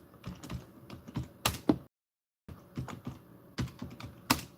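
Typing on a computer keyboard: irregular clicks and taps. The audio cuts out completely for about half a second around two seconds in.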